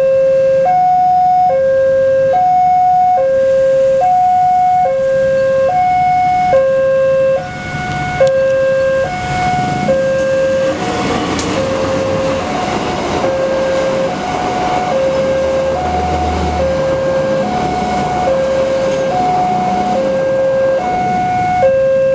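Railroad crossing's electronic warning bell sounding a steady two-tone alternation, a low and a higher tone switching back and forth under a second apart. From about nine seconds in, the rumble and clatter of a passenger train passing over the crossing rises beneath it.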